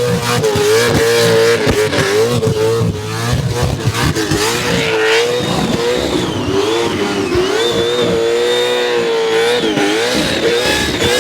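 Supercharged 427 cubic-inch small-block Chevrolet V8 held at high revs in a burnout, its pitch wavering up and down over and over as the throttle is worked, without ever dropping to idle.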